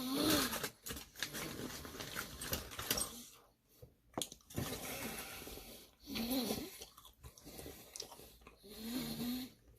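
Close-miked chewing and wet mouth sounds of a person eating chicken wings, with a few short closed-mouth hums.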